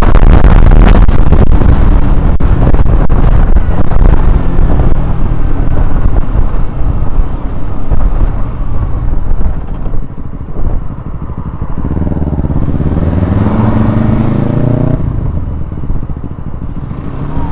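Honda CBR125R single-cylinder motorcycle engine running under heavy wind noise on the camera microphone while riding. Late on the engine revs up in a rising tone for about three seconds, then drops off suddenly.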